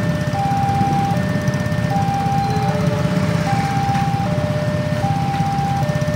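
Railway level crossing warning alarm sounding a two-tone ding-dong, a higher and a lower tone alternating about every eight-tenths of a second, signalling that the crossing is closed for an approaching train. Under it, many motorcycle engines idle in a low rumble.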